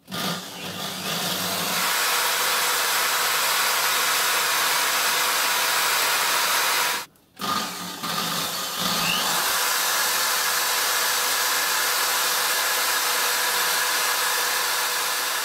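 Small electric motor of a homemade cotton candy machine running steadily at high speed with a whirring hiss, spinning its head while melted sugar syrup is poured on and spun into floss. The sound drops out for a moment about seven seconds in.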